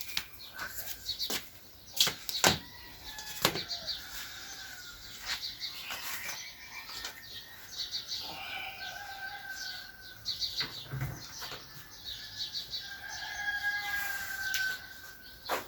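Birds calling on a rooftop: quick repeated high chirps, with several sharp flaps or claps in the first few seconds and a longer held call about halfway through and again near the end.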